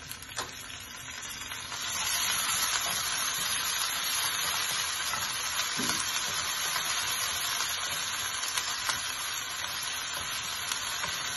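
Chopped onions, green chillies and ginger-garlic paste sizzling in hot oil in a nonstick frying pan while being sautéed and stirred with a wooden spatula; the sizzle grows louder about two seconds in, with light scrapes of the spatula.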